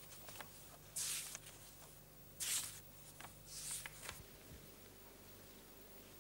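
Faint handling noise of a plastic magnetic tape reel on a desk: three short scraping rustles and a few small clicks over a low hum.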